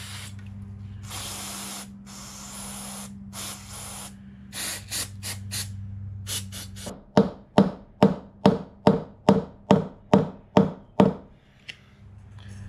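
Aerosol carb cleaner sprayed through its straw into a small-engine carburetor in several long hissing bursts, then a run of short quick bursts. After that come about ten sharp metal taps, about two or three a second, of a hammer on a screwdriver set in the carburetor, trying to break loose the clogged main jet, which does not give.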